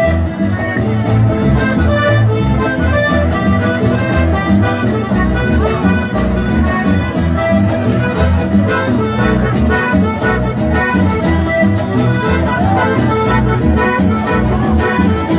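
Chamamé music played live, the accordion carrying the melody over guitar and a deep bass line, with a steady, even beat.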